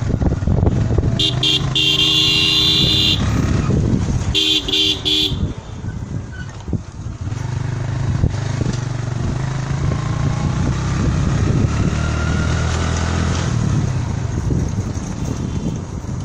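A small motor vehicle engine running close by, with two horn blasts: a long one about a second in and a shorter one about four seconds in.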